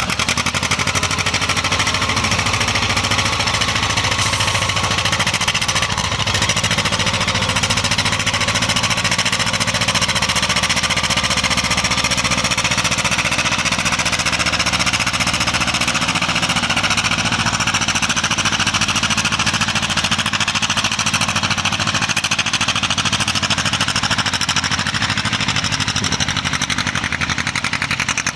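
Vintage John Deere tractor's two-cylinder engine working hard under steady load while it drags a weight-transfer pulling sled, a loud, fast, rough popping that holds fairly even throughout.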